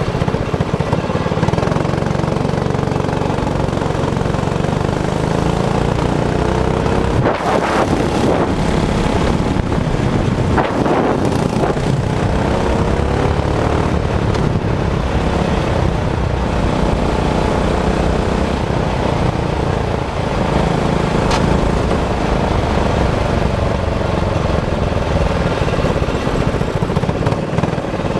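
Intrepid racing kart's engine running on the move, its pitch rising and falling as the throttle opens and closes, with a few brief knocks about seven to eleven seconds in.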